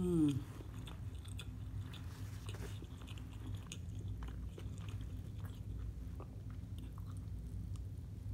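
Close-miked chewing of a shrimp po' boy (cracker-crumb-coated fried shrimp on French bread): soft crunching and wet mouth sounds, with many small crackles. It opens with a brief hummed voice sound.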